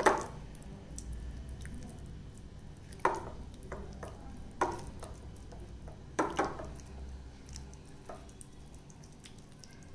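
Hands rubbing a wet masala marinade into pieces of fish in a glass bowl: soft squishing with a handful of short sharp wet clicks as the pieces are worked against the glass, two of them close together past the middle.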